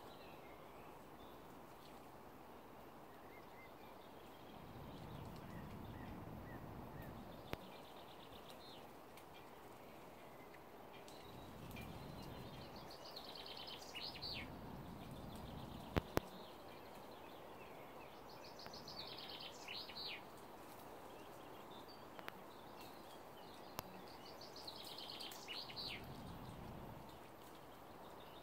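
A small songbird singing the same short, high phrase three times, about five seconds apart, each ending in a few falling notes. Under it is a faint low rumble that swells and fades, with a sharp click about two-thirds of the way through.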